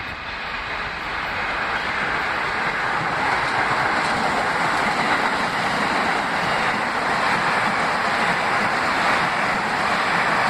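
An R160 subway train passing through a station at speed without stopping: a steady rush of wheel and rail noise that builds over the first few seconds as the train arrives, then holds loud as the cars go by.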